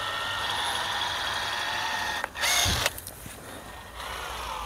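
Cordless caulking gun's motor whining steadily as it pushes out a bead of polyurethane windscreen adhesive. A brief loud noise comes about two and a half seconds in. Near the end the motor starts again with a whine that falls in pitch.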